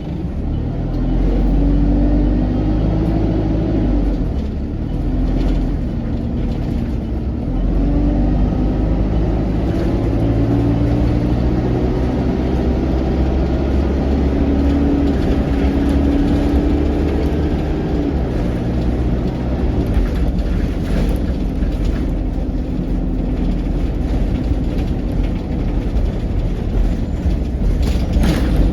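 Onboard sound of an ADL Enviro200 bus's diesel engine and Allison 2000 automatic gearbox pulling away. The engine note rises and drops back several times as it goes up through the gears, under a loud vacuum-cleaner-like 'hoover' whine. There is a sharp knock or rattle near the end.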